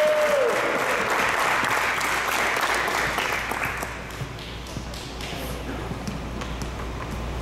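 Small audience applauding, dying away about four seconds in.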